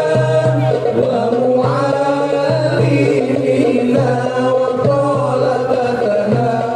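Sholawat, Islamic devotional singing in Arabic style, with voices carrying a melismatic melody over a steady, rhythmically pulsing accompaniment.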